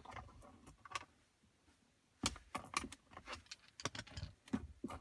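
Light metallic clicks and clinks of small screws and a metal screen bracket being handled by hand. Scattered at first, a quiet spell about a second in, then a busier run of clicks from a little past two seconds.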